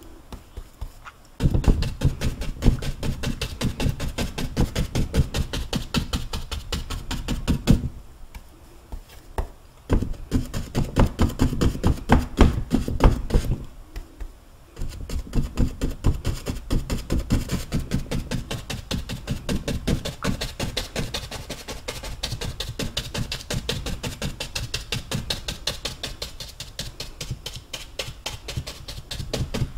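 A 1-inch paintbrush loaded with green paint tapping rapidly against a stretched canvas, dabbing in tree foliage. The tapping stops briefly about a second in, again around eight to ten seconds in, and around fourteen seconds in, then carries on.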